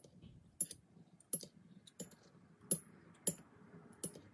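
Steel straight razor being honed back and forth on a wet nephrite jade finishing stone: a sharp click of the blade on the stone about every two-thirds of a second, seven in all, with a faint scrape between. It is a light final refresh of the edge on a fine stone.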